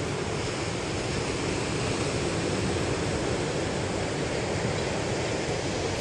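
Steady rush of ocean surf breaking on a sandy beach, with wind buffeting the microphone.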